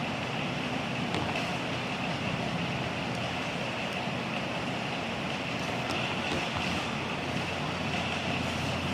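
Steady background noise with a few faint ticks.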